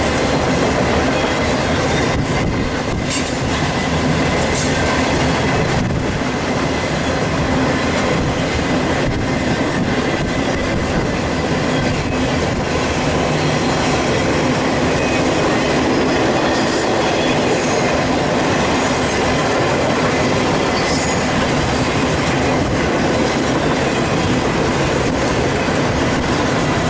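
Freight train of autorack cars rolling past at about 37 mph: a loud, steady run of wheels on rail with some clicking over the joints.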